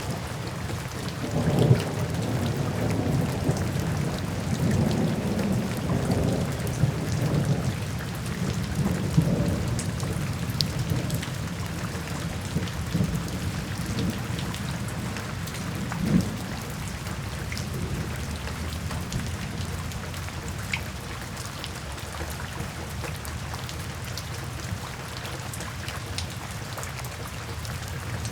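Steady heavy rain falling with rolling thunder: low rumbles swell through the first third, and a sharper thunder crack comes about halfway through.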